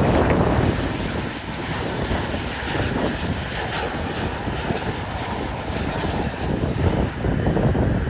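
Aircraft engine noise, a steady rushing haze, mixed with strong, gusty wind buffeting on the microphone.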